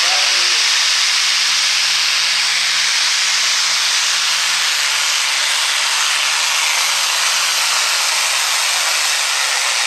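Turbocharged diesel engine of an International Harvester light pro stock pulling tractor held at high rpm under full throttle during a pull, with a loud, steady turbo hiss over a wavering engine note.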